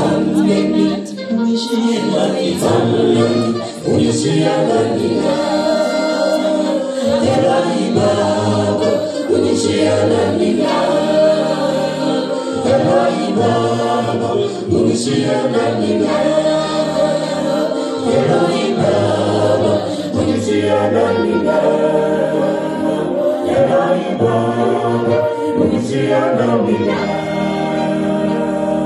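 A small mixed choir of men and women singing an a cappella gospel hymn together through stage microphones, with no instruments.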